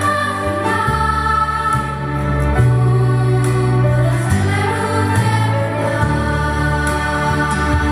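Orchestral film music with a choir singing long held chords over a bass line that moves from note to note about once a second.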